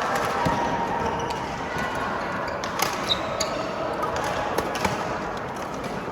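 Badminton play in a hall: a series of sharp smacks at irregular intervals from rackets striking the shuttlecock and shoes on the court floor, over a steady hum of voices.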